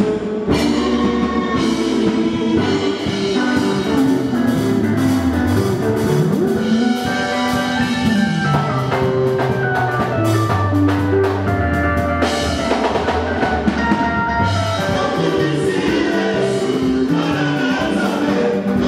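Live Congolese gospel music: a male vocal group singing over a band with a drum kit keeping a steady beat.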